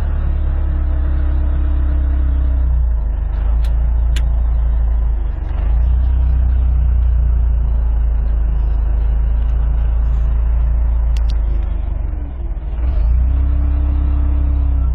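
Diesel engine of a construction machine running steadily, heard inside its cab as a heavy low drone. A higher steady whine joins it briefly near the start and again near the end.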